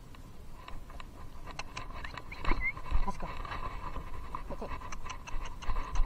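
Horse walking over grass with soft, irregular hoof thuds, under frequent light clicks and rattles from a loose chest-harness camera.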